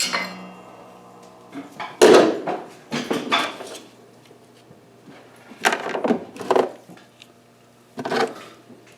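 Metal tools and loose hardware clanking and clinking as they are picked up and set down: a string of separate knocks, the first ringing on briefly and the loudest about two seconds in.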